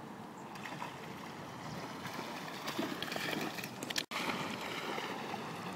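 Water splashing and churning as an English springer spaniel plunges and paddles through shallow water, with wind on the microphone. The splashing grows louder in the second half, and the sound cuts out for an instant about two-thirds of the way through.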